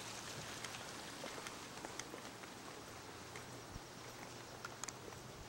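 Quiet trailside ambience: a faint steady hiss with a few scattered light clicks.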